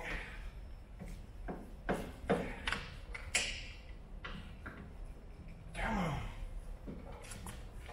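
Scattered light clicks and knocks from hand work on a Land Rover LR3's air suspension compressor, disconnecting its air lines and fittings from below. A short falling grunt comes about six seconds in.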